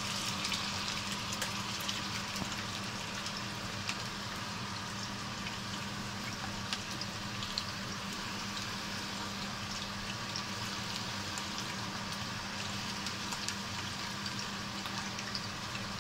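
Soutzoukakia, Greek ground-beef meat rolls, frying in hot oil in a pan: a steady sizzle with many scattered crackles and pops as more rolls are laid into the oil.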